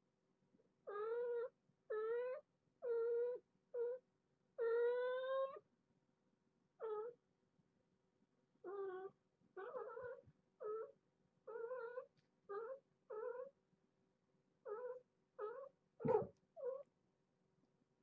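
Kitten meowing over and over, about sixteen short high calls, several each second at times, with one longer drawn-out meow about five seconds in. A louder meow near the end comes with a soft thump.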